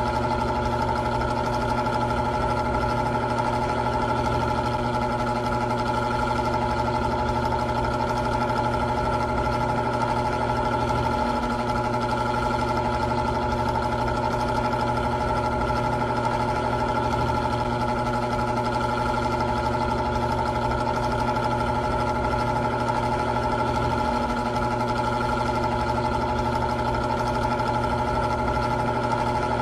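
Old electric fan running steadily: an even motor hum with several constant tones over a rush of air.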